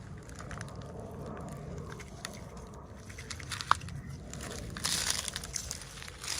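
Hands handling and opening toy packaging: crinkling and scattered clicks, with a short sharp tick just under four seconds in and a louder rustle about five seconds in.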